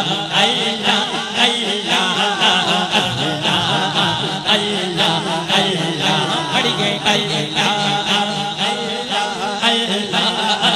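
Devotional naat singing: a man's voice singing a long melodic line into a microphone through a PA, over a steady, rhythmic chanted backing.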